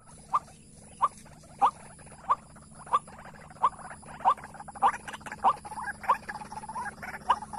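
White-breasted waterhen (ruak-ruak) calling: a run of about a dozen short, sharp notes repeated evenly, about one and a half a second.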